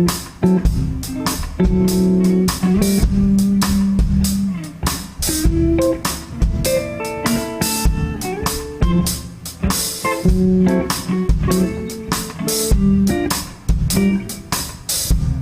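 Live band playing the instrumental intro of a slow song: electric guitars picking melodic notes over bass guitar, with drums keeping time.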